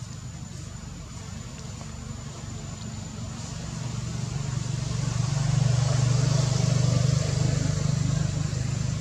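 A low engine hum that grows louder from about four seconds in, peaks around six seconds and then eases a little, like a motor vehicle coming closer, over a faint steady high whine.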